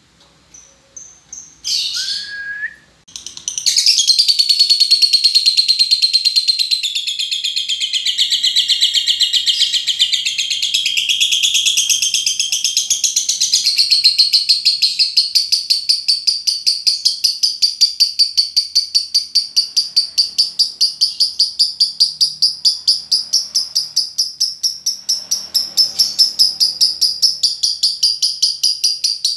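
Lovebird 'ngekek' chatter: a few short high chirps, then from about four seconds in one long, unbroken, fast high-pitched trill of about five pulses a second that runs on without pause.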